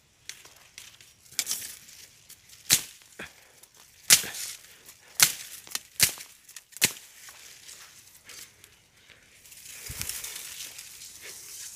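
A blade chopping at the base of a thin bamboo cane: about six sharp strikes, roughly a second apart. Near the end comes a longer rustle of bamboo leaves as the cut cane tips over.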